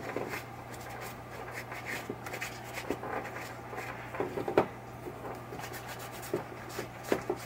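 Paper shop towel rubbing and rustling over pinball chime-box coils as old coil dust is wiped off, with small metallic clicks as the coil and its bracket are handled, one louder click about halfway through.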